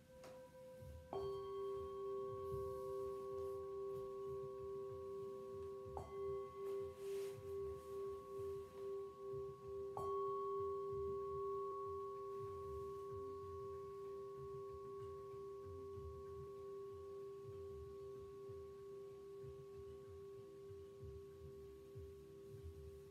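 Metal singing bowls struck three times, about one, six and ten seconds in. Their long overlapping ringing tones waver and pulse, then fade slowly.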